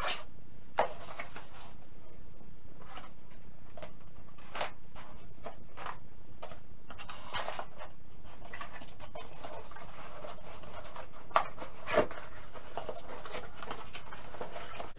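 Cardboard mailing boxes being handled, folded and slid on a table: scattered rustling and light taps, with two sharper knocks about three-quarters of the way through.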